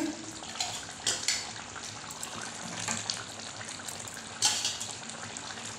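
Fish curry gravy simmering in a nonstick kadai with a steady bubbling hiss, while a spatula stirs the fish and potatoes, scraping against the pan with sharper scrapes about a second in and again past four seconds.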